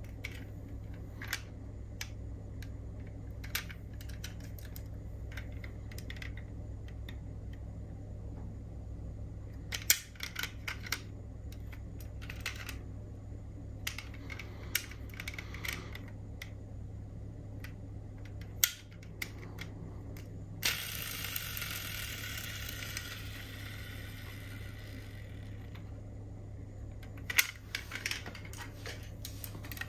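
Clicks and taps of small diecast metal model cars being handled, over a steady low hum. About two-thirds of the way in, a hissing whirr runs for roughly five seconds.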